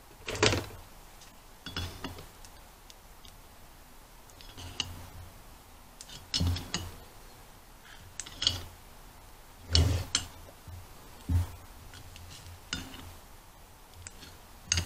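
Sharp metal-on-metal clicks and knocks, one every second or so, from a screwdriver prying at the seal and ring on an old wheel hub; the loudest comes about half a second in, as a tool is taken from a drawer.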